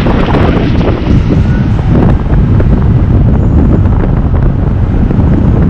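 Ford F-150 pickup running on its newly fitted driveshaft carrier bearing bracket, buried under heavy wind rumble on the microphone.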